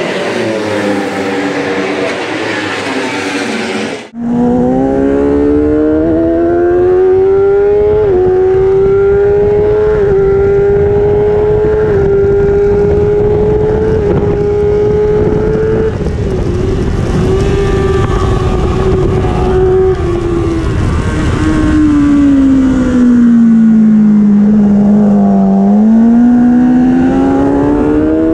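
Engine noise heard from the pit lane, then, after about four seconds, the onboard sound of a Kawasaki superbike's inline-four engine at racing speed. The revs climb through the gears with a short drop at each upshift, hold, then fall as it slows and downshifts, and rise again near the end. The revs climb slowly in second and third gear between 6,000 and 11,000 rpm, a lack of power the team blames on a failing fuel pump.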